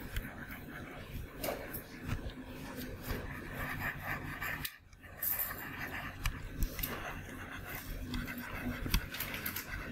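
Stylus tapping and scraping on a tablet screen while handwriting, a scatter of short light clicks and scratches over faint room noise, which drops out briefly about halfway through.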